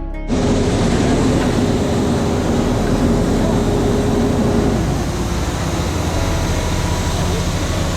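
Machinery engines running steadily, with a pitched hum on top that stops about five seconds in.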